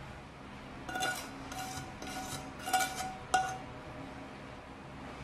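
Metal spoon scraping caramel off the rim of a pan, clinking against the metal about five times in quick succession, with a light ringing on each stroke; the last one is a sharp tap.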